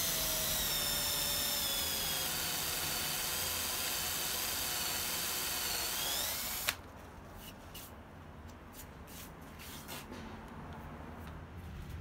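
Cordless drill turning a home-forged spade bit into a wooden board. The motor whine sinks slowly in pitch under load, rises briefly and cuts off about six and a half seconds in, followed by a few light clicks and knocks. The bit cuts slowly because its shoulders have no cutting angles yet.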